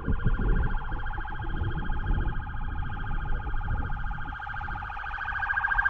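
Police pickup's electronic siren sounding a steady, rapidly pulsing tone over a low rumble from the truck driving by; the siren grows louder near the end.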